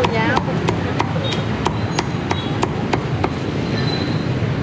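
Knife chopping crispy-skinned roast pork on a thick round wooden chopping block: sharp, even chops at about three a second, which stop a little over three seconds in.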